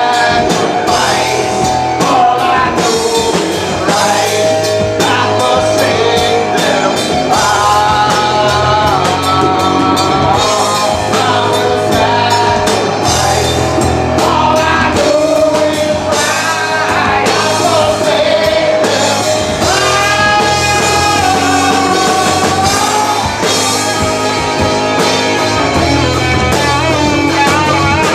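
Live rock band playing a song: a lead vocal sung over drums and guitars, loud and steady.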